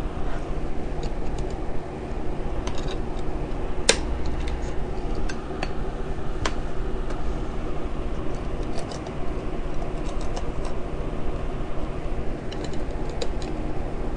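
Scattered small plastic clicks and taps as the cover strip above the keyboard of a Dell Inspiron 1525 laptop is worked at and pried without snapping free, with one sharper click about 4 seconds in, over a steady low hum.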